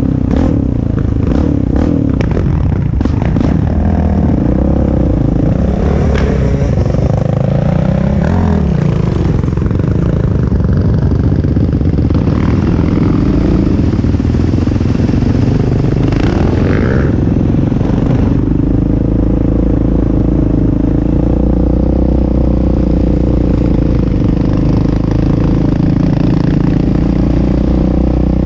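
Off-road vehicle engine heard from onboard while riding, rising and falling in pitch with the throttle over the first several seconds, then holding a steadier note. Knocks and rattles from the machine on the rough trail sound during the first eight seconds or so.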